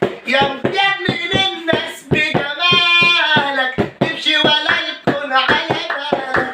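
A man singing in Egyptian shaabi style, with long held notes, over a quick beat of sharp hand-made percussive hits, about three to four a second.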